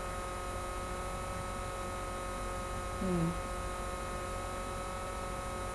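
Steady electrical mains hum with several faint steady whining tones above it. About three seconds in, a person makes one short falling "mm".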